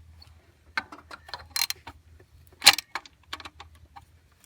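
Irregular metallic clicks and clinks of a socket wrench on an extension and universal joint working the distributor hold-down bolt of a Ford 302 V8 tight, with one louder clank about two-thirds of the way in.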